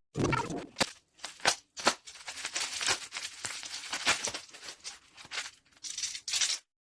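Mechanical keyboard switches (Gateron) clattering as they are pressed in rapid, irregular bursts of clicks, cutting off abruptly near the end.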